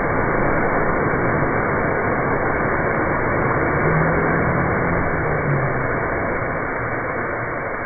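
Steady loud rushing noise, even and without tones, that set in abruptly just before.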